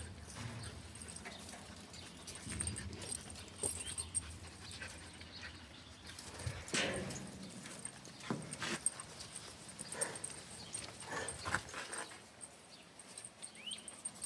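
Scattered short animal sounds from a dog meeting pet foxes for the first time: brief whimpers and squeaks among a few clicks, with a short rising squeak near the end.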